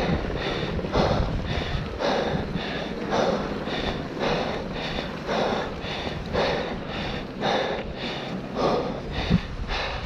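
Mountain biker breathing hard and rhythmically while pedalling, about one loud breath a second with weaker ones between, over a steady rush of tyres on gravel and wind on the microphone.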